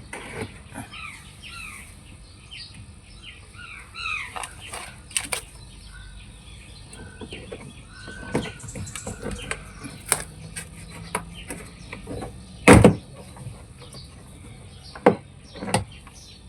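Birds chirping in short falling calls throughout, with scattered clicks and a few sharp knocks of handling work. The loudest knock comes about thirteen seconds in, and two more follow a couple of seconds later.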